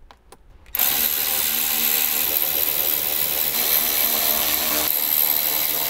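Cordless drill/driver with a T10 Torx bit running, driving the screws that hold a speaker housing into a Jeep's overhead soundbar. It starts just under a second in and then whirs steadily, with slight changes in pitch partway through.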